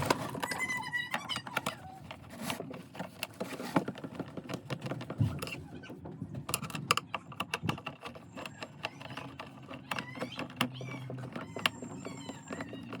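Scattered clicks and light knocks of hand work on a Bluetooth trolley speaker's plastic case and internal parts.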